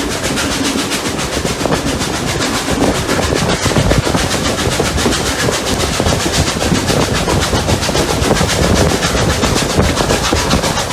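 Two steam locomotives, Rx207 and 621, working a train uphill, heard from on board: a fast, steady chuffing of exhaust beats over the rumble and clatter of the train.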